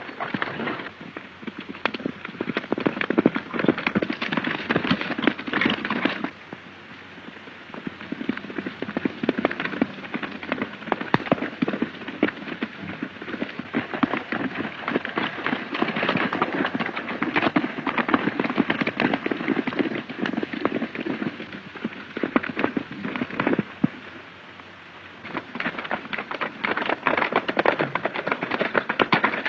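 Galloping horses' hoofbeats, a fast, dense clatter that eases off briefly twice.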